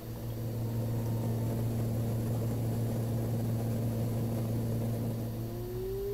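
Small propeller airliner's engines heard from inside the cabin as the plane climbs away after takeoff. A steady droning hum grows louder about a second in, and a tone rises near the end.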